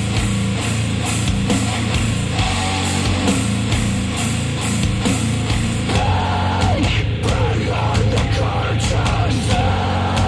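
Loud rock music with a driving drum beat, played back through Polk Audio TSi 200 bookshelf speakers driven by an IOTAVX SA3 integrated amplifier. A voice comes in about six seconds in.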